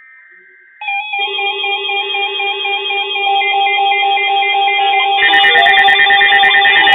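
A short NOAA Weather Radio SAME data burst, then several weather alert radios set off at once, their electronic alarm tones beeping and droning over each other and building louder, with more alarm sounds joining about five seconds in: receivers alerting to an incoming warning.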